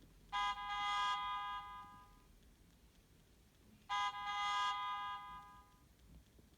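Nokia 1650 mobile phone playing a ringtone: a held tone with many overtones sounds twice, each time for about two seconds before tailing off, the second starting about three and a half seconds after the first.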